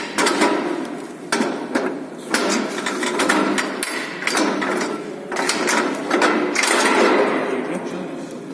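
Brick mix being poured and scooped into the steel mould of a manual Lego-brick press: long stretches of gritty rattling and scraping, broken by sharp metal clicks and knocks.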